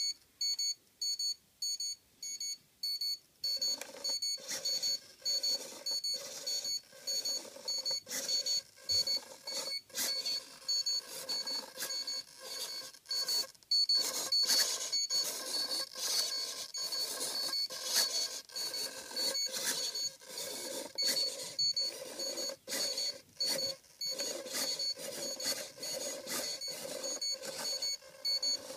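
High electronic beeping, repeating about twice a second. From about three and a half seconds in, an RC steering servo joins it with a whirring that comes in uneven spurts as it drives the cable pulley back and forth.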